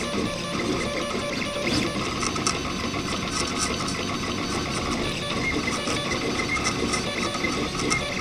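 RepRap Prusa Mendel 3D printer running a print: its stepper motors whine and buzz in shifting pitches as the extruder head moves back and forth laying down infill, with small ticks over a steady hum.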